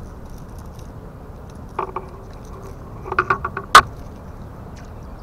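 Fishing tackle being handled: a short metallic jangle, then a quick run of small clicks and rattles, ending in one sharp click, the loudest sound, over a steady outdoor hiss.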